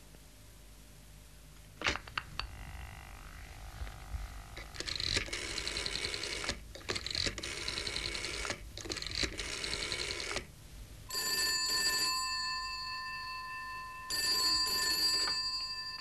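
Black rotary telephone being used: the receiver is picked up with a click, the dial is turned and ticks back several times, then a telephone bell rings twice in long rings.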